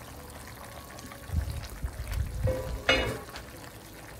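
Chicken broth with papaya and malunggay simmering in an uncovered enamelled cast-iron pot, a steady bubbling hiss, while a wooden spoon stirs through it, making soft knocks against the pot between about one and three seconds in.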